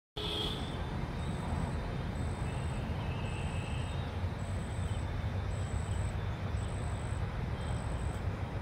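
Wind blowing over the microphone: a steady low rumble with a hiss above it. A faint, thin, high-pitched chirp repeats about once a second.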